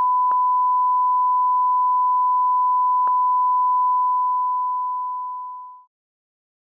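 Steady 1 kHz sine test tone, a single unwavering beep, with two faint clicks about a third of a second and three seconds in; it fades out from about four seconds and cuts off near the end.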